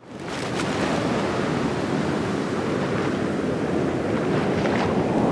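Ocean surf washing steadily, fading in from silence over the first half second.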